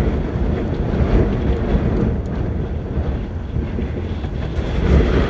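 Strong wind rumbling and buffeting on the microphone over the steady noise of highway traffic.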